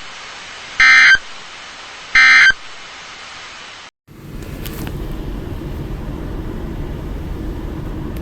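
Two short screeching data bursts of an Emergency Alert System end-of-message code, over NOAA Weather Radio hiss, marking the end of a severe thunderstorm warning. The radio audio cuts off about four seconds in, and a steady low rumble follows.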